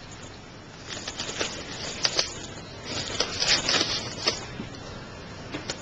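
Saline being squirted over a wound, spattering and dripping as an irregular patter and crackle that starts about a second in.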